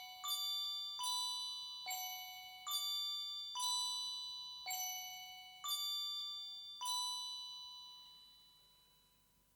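Background music: a slow melody of single bell-like mallet notes, about one a second, each ringing and fading. The last note dies away near the end, leaving a brief silence.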